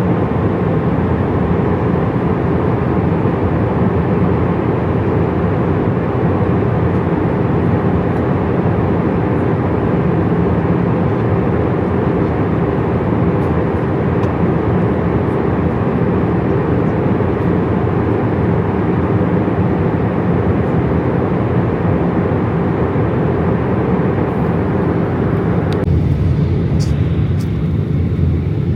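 Steady cabin noise of an airliner in flight: a loud, even rush of jet engines and airflow over a steady hum. Near the end the higher hiss drops away abruptly and stays lower, while the low rumble runs on.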